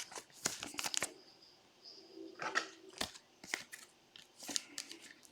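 Trading cards and their plastic or foil packaging being handled: faint, scattered rustles, slides and small clicks.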